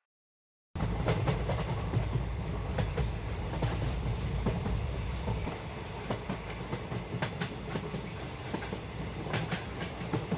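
Moving passenger train: its wheels clatter over the rail joints with many sharp clicks over a steady low rumble. It starts abruptly just under a second in, after a moment of silence.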